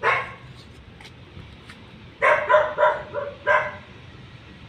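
A dog barking: one bark at the start, then a quick run of about five barks a little past the middle.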